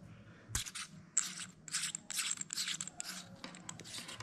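Handling noise from a small plastic adapter and its cable being turned over in the hands: a quick run of short, scratchy rustles and scrapes, with a soft knock about half a second in.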